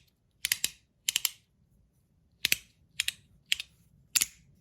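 Zirconium haptic coin fidget being snapped back and forth between its magnetic positions: sharp metallic clicks, some in quick pairs, coming irregularly every half second to a second.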